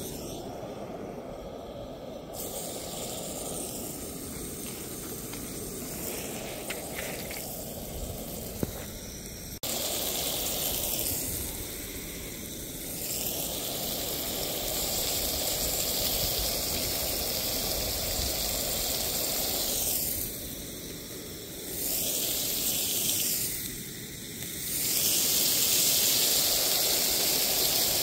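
Butter hissing in a small pan on a camp stove, then thin slices of sirloin steak sizzling loudly once they go into the pan about ten seconds in. The sizzle swells and fades a few times.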